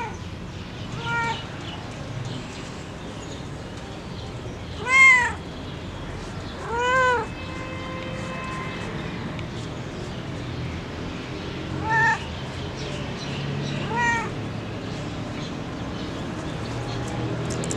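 Spotted tabby cat meowing five times, each meow a short call that rises and then falls in pitch; the meow about five seconds in is the loudest.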